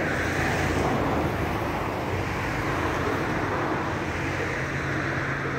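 Vehicle engines idling steadily, a constant low hum with a hiss over it.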